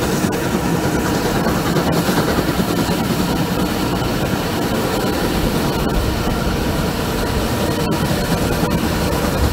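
Steam-hauled passenger train running, heard from an open carriage window: a steady rumble of wheels on the rails mixed with rushing wind.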